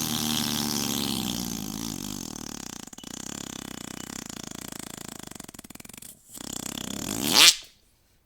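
A long, drawn-out fart: a buzzing, pitched rasp that sags slightly in pitch and breaks into a rapid flutter. After a short break near six seconds comes a second, shorter fart that swells louder and cuts off abruptly.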